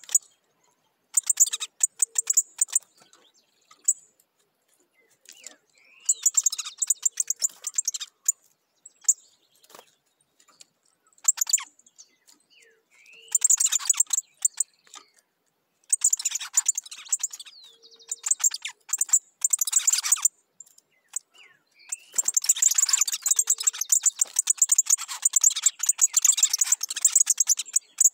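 Picahueso (golden-billed saltator) singing in repeated bursts of rapid, high chattering notes, each a second or two long, with gaps between them and a longer, denser bout near the end.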